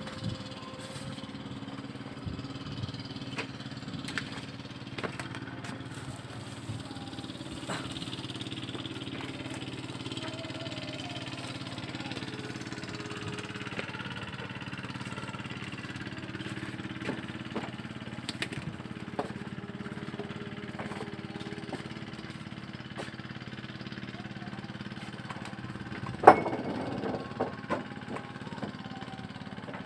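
An engine running steadily at an even pitch. Near the end comes one sharp knock, followed by a few lighter clicks.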